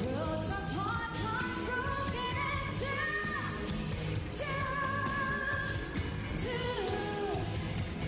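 A woman singing lead over a live pop-rock band, her voice climbing step by step to long held high notes, with about four cymbal crashes.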